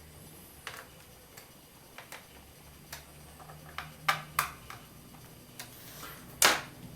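Scattered small clicks and taps of a screwdriver and screws as the screws go back into a laptop's case, with a louder tap near the end.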